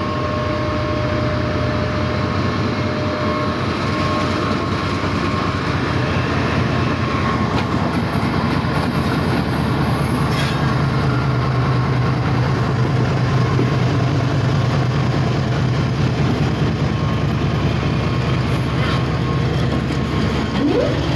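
Diesel locomotive's engine running steadily, a loud low drone that stays level throughout, with a faint thin whine over it in the first few seconds.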